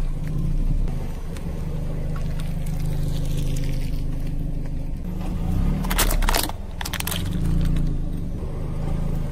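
A car engine idling steadily, with a short burst of cracking and crunching about six seconds in as the tyre crushes something brittle.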